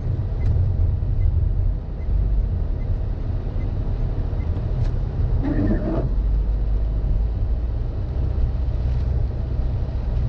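Car cabin noise while driving on a rain-soaked road: a steady low rumble of engine and tyres with an even hiss of tyres on wet asphalt. A brief voice-like sound comes about halfway through.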